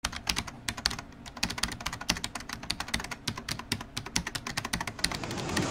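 Computer keyboard typing sound effect: rapid, irregular key clicks, several a second. A rising hiss comes in near the end.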